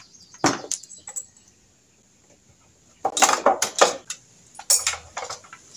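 Screwdriver and metal brush cutter engine parts clinking and clattering during disassembly: a few sharp clicks about half a second in, a burst of clatter about three seconds in, and a few more clinks near the end.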